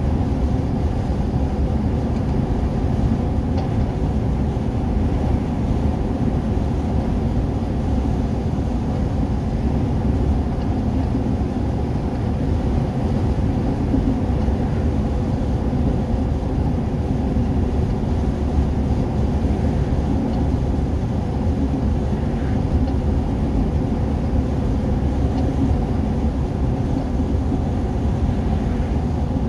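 Steady low rumble of tyre, road and engine noise inside a vehicle's cabin while driving at motorway speed, with a faint constant hum and no distinct events.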